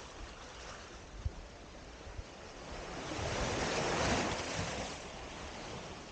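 Sea waves washing below a cliff, mixed with wind; the wash swells for about two seconds in the middle. A faint knock sounds a little over a second in.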